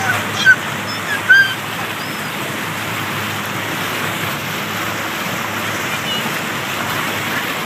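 Motorboat running at speed while towing a tube: a steady rush of churning wake water and engine noise. Two brief high-pitched voice sounds stand out about half a second and a second and a half in.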